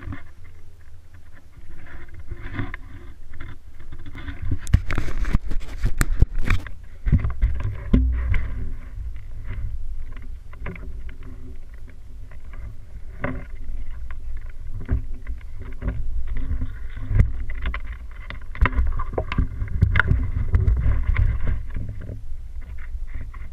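Wind buffeting the camera's microphone: a gusting low rumble that rises and falls throughout. A few sharp knocks about five to seven seconds in, likely handling of the camera or contact with the rock.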